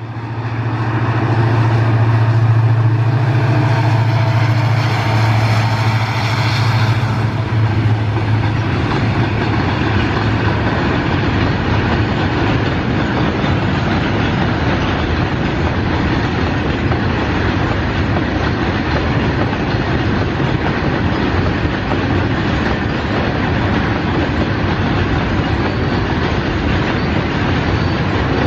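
Diesel-hauled freight train passing: a deep, steady locomotive engine drone dies away over the first eight seconds or so, leaving the continuous rumble and clatter of freight wagons rolling over the track.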